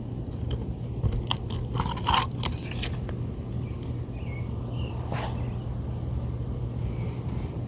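Asphalt shingles being lifted and their roofing nails pulled with a hand tool: scattered clicks, scrapes and crunches, busiest in the first three seconds, with another sharp click about five seconds in. A steady low hum runs underneath.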